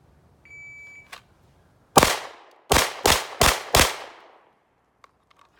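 A shot timer's start beep, then a handgun fired five times: the first shot about a second after the beep ends, the other four in quick succession about a third of a second apart.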